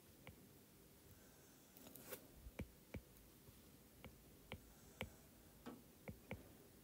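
Faint, irregular clicks and taps of a stylus tip on a tablet's glass screen during handwriting, about ten in a few seconds.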